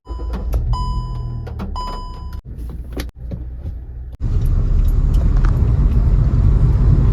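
Car sounds cut together: a low engine rumble with a chime beeping twice, then after a few abrupt cuts a louder, steady low rumble of a car on the move.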